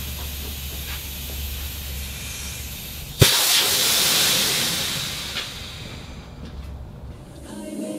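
Sheet-metal squaring shear: a steady low hum, then one sharp bang a little past three seconds in as the blade comes down, followed by a loud hiss that fades over about two seconds.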